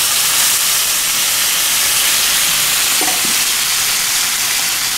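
Ribeye steak sizzling on a hot iron sizzling platter as peppercorn butter sauce is poured onto it: a loud, steady hiss.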